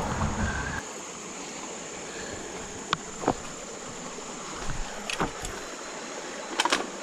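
Footsteps and scuffs of someone climbing down a creek bank: a few sharp knocks and crunches over a steady hiss of flowing creek water, with a low rumble of handling on the chest-mounted camera in the first second.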